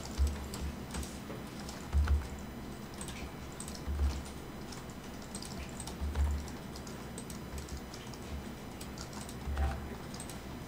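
Computer keyboard and mouse clicks, light and scattered, from hands working the mesh with shortcuts and clicks. A few dull low thumps, the loudest sounds, come about every two seconds.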